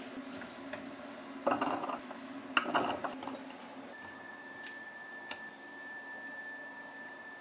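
Kitchenware clattering in two short bursts, over a steady low hum; a faint, steady high whine starts about four seconds in.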